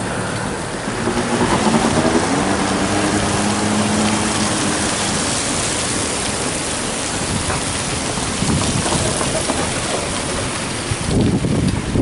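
Strong, gusty autumn wind rushing through street trees and blowing dry leaves along. Near the end the gusts hit the microphone with a rough, low rumble.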